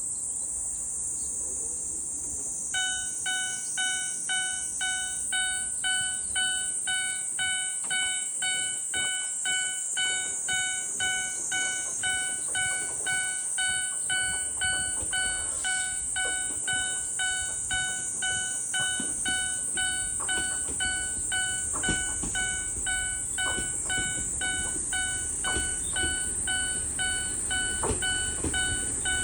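Level crossing warning bell starting up about three seconds in and ringing on in a steady, evenly spaced ding, over a steady high-pitched hiss. In the last several seconds the low rumble of the approaching TH9200 diesel railcar builds beneath it.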